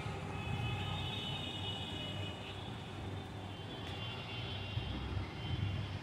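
A steady low mechanical hum with a faint high whine above it.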